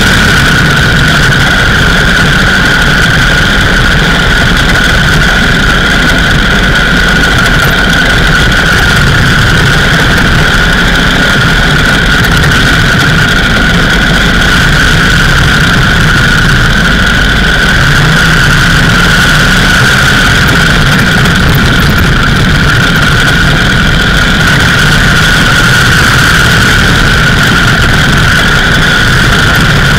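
Indian 101 Scout's side-valve V-twin engine running steadily while the motorcycle cruises along the road, with wind rushing over the microphone.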